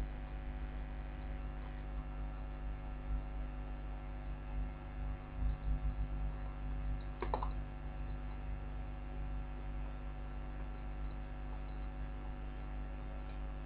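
Steady electrical mains hum picked up by the recording microphone, with a brief faint sound about seven seconds in.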